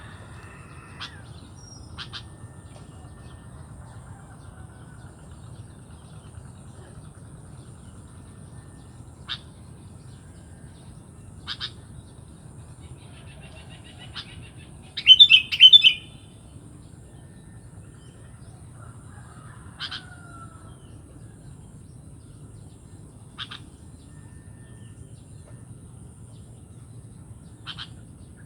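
Sooty-headed bulbul giving short, sharp calls every few seconds, with a louder burst of several quick notes about halfway through.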